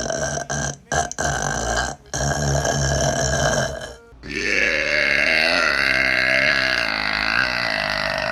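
Women burping: a string of long, drawn-out burps, one after another with short breaks between them. The last burp is the longest, about four seconds, and fades out near the end.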